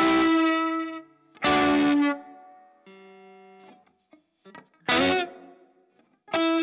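Fender Stratocaster electric guitar played through an MXR Classic 108 fuzz and a Strymon Iridium amp modeler: four strummed chords with short gaps between them, and a quieter held note about three seconds in.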